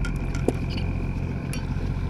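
Small boat engine idling steadily, with a few faint clicks over it.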